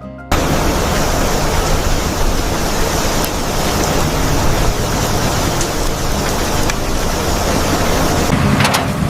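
Heavy rain pouring down in a steady loud hiss that cuts in suddenly just after the start, with a few sharp taps or knocks near the end.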